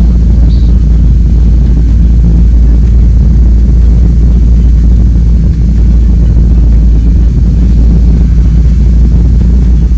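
Light single-engine airplane's engine and propeller, a loud steady low drone.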